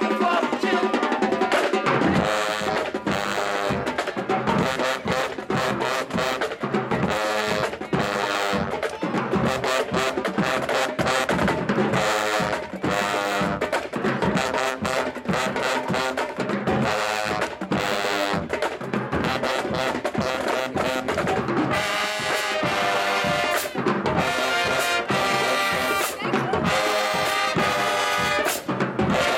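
HBCU-style marching band playing: trumpets and trombones over drums.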